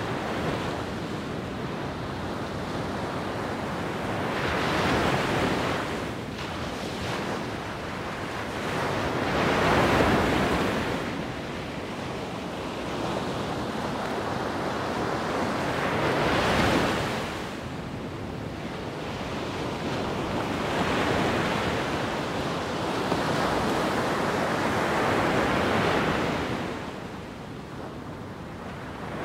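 Wind blowing in gusts, a steady rushing that swells and fades every few seconds, buffeting the microphone.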